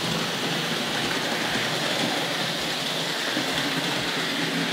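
Hornby Dublo 2-6-4 tank locomotive running with a rake of tinplate suburban coaches on three-rail track: a steady running rumble with soft low knocks every half second or so.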